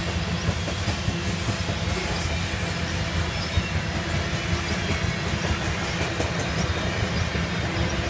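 Freight train of covered grain hopper cars rolling past: a steady rumble of steel wheels on rail, with frequent short clicks and knocks from the wheels and cars.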